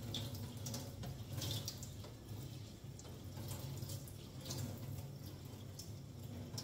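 Distilled water being poured over lentils in a strainer, running and dripping through as they are rinsed. A low steady hum sits underneath.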